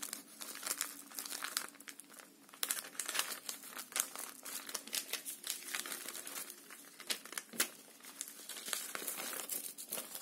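Paper envelope made from a sheet of notebook paper being handled and opened by hand: irregular crinkling and rustling of the paper.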